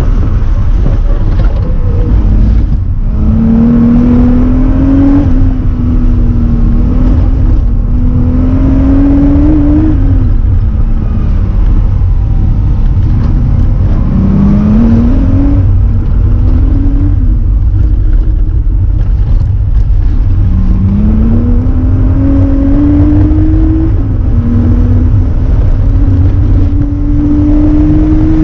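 Air-cooled flat-six of a classic Porsche 911 safari rally car, heard from inside the cabin, driven hard: the engine note climbs in pitch again and again and drops back at each shift or lift, about six surges in all, over a heavy low rumble.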